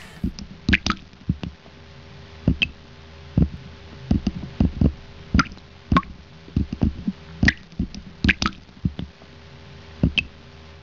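Water dripping and plopping: about twenty irregular drops, some with a short ringing plink, over a faint steady hum.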